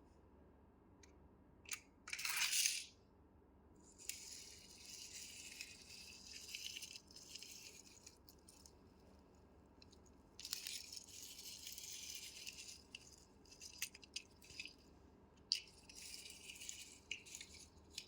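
Small hard objects rattling and clicking in three stretches of a few seconds each, with scattered single clicks and a sharp, louder rustling burst about two seconds in.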